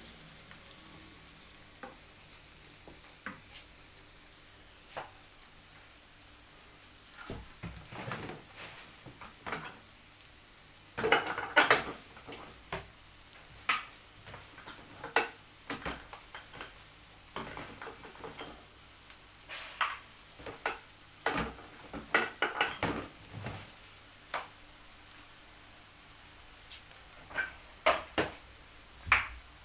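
Minced meat frying with diced onion and red pepper in a frying pan, with a faint steady sizzle. From about seven seconds in, a wooden spoon scrapes and knocks against the pan in irregular strokes, loudest about eleven seconds in.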